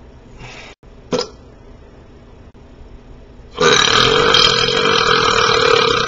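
A man's long, loud, steady burp lasting about two and a half seconds, starting past halfway through, preceded by a brief sharp sound about a second in.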